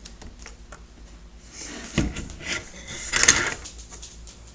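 Handling noises from a homemade pipe shotgun being turned over in the hands: light clicks, a knock about two seconds in, and a louder rub or scrape a little after three seconds.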